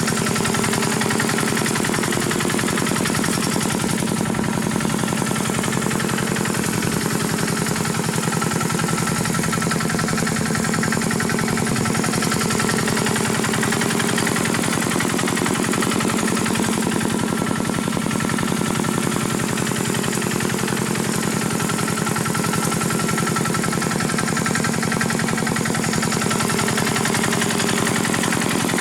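Rice-harvesting tractor's engine running steadily with a fast, even chugging beat.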